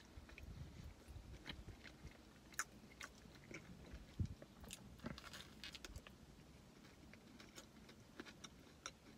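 Faint chewing of a bite of protein crunch bar, with small irregular wet clicks and crunches from the mouth.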